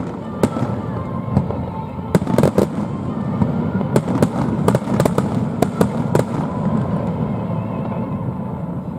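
Fireworks bursting overhead: many sharp crackling bangs in quick succession over a steady low rumble, the cracks thinning out after about six seconds.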